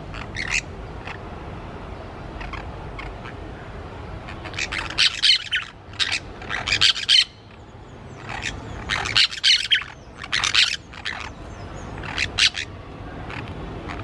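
Orange-chinned parakeets giving shrill, chattering squawks in several bouts: a short one at the start, two longer loud clusters around five to seven and nine to eleven seconds in, and a brief one near the end.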